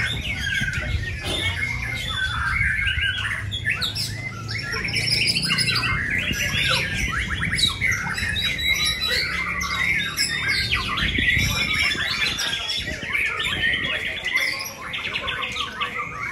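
Caged white-rumped shamas singing, several birds' rapid, varied phrases overlapping without a break, over a low background rumble.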